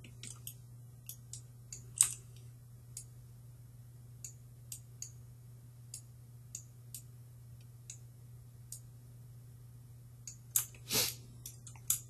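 Computer mouse and keyboard clicks, sparse and irregular, over a steady low electrical hum, with a sharper click about two seconds in and a louder cluster of clicks near the end.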